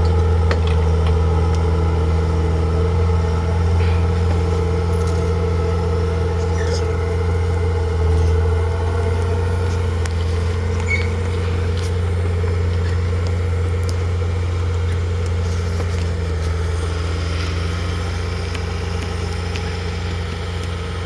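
Bulldozer's heavy diesel engine running steadily at work, a deep continuous drone that eases off slightly toward the end.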